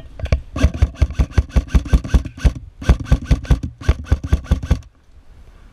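Airsoft electric rifle, a Lancer Tactical LT-15 Gen 2, firing rapid strings of shots: a run of about two seconds, a brief pause, then two shorter runs.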